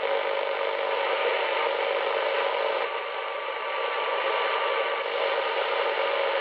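Icom IC-718 shortwave receiver in AM mode being tuned across the 31-metre broadcast band: loud, hissy static with faint steady whistles, as the dial moves between stations. The band sounds rather noisy.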